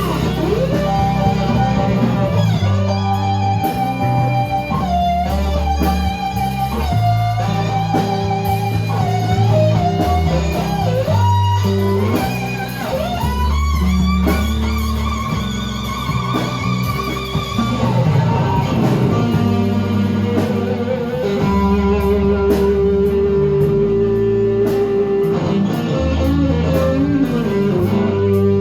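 Live band playing an instrumental blues-rock passage: an electric guitar lead with bent, wavering notes over bass and rhythm guitar.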